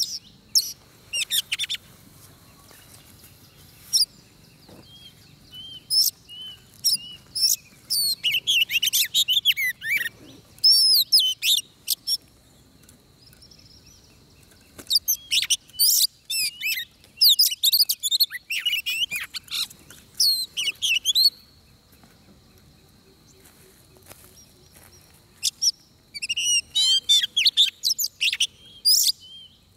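Oriental magpie-robin singing: bursts of rapid, varied whistled phrases with short pauses between them.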